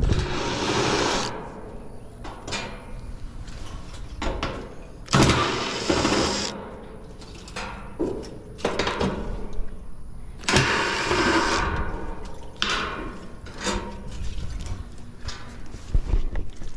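Makita 18V cordless impact driver running in short bursts of about a second, three of them loudest, backing screws out of an outdoor condenser unit's sheet-metal panels, with clanks and rattles of the loose metal panels and fan grille between bursts.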